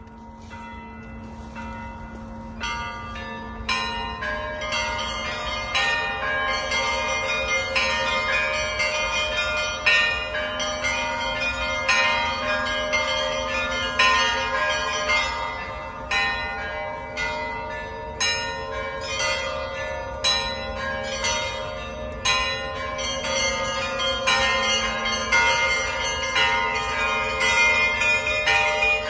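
Russian Orthodox church bells rung by hand by a bell-ringer: quick strikes of the smaller bells in a repeating pattern over the long ringing hum of larger bells. The ringing starts softly and fills out after about two seconds.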